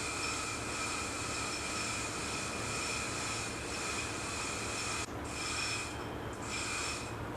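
Steady drone of ship's engine-room machinery with a constant whine. About five seconds in, a hiss breaks off and returns in short pulses.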